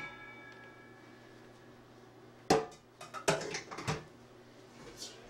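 Stainless steel stockpot and steamer basket clanking as they are handled: a metal ring fades over the first second and a half, then a sharp clank about two and a half seconds in, followed by a quick run of knocks a second later.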